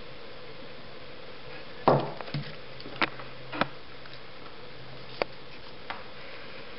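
A handful of light knocks and taps of small tools and parts being picked up and set down on a tabletop, the loudest about two seconds in and the rest scattered over the next four seconds, over a faint steady hum.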